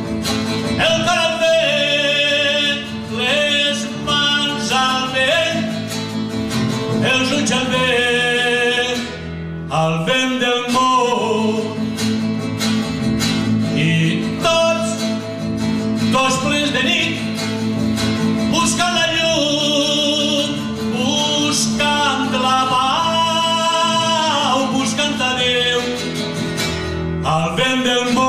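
Live music: a man singing a song in Catalan, accompanied by two classical guitars. The voice breaks off briefly about nine seconds in, then carries on.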